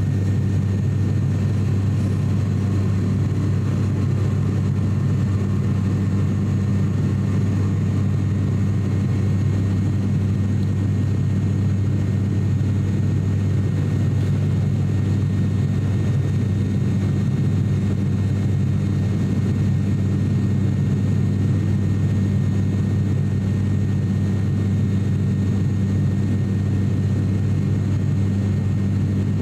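Steady deep drone of an ATR 42-600's Pratt & Whitney PW127 turboprop engine and propeller in flight, heard inside the cabin beside the spinning propeller.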